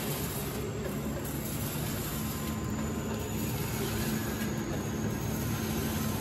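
Vertical form-fill-seal packaging machine running: a steady mechanical hum with a held low tone. A slight change recurs about every two seconds.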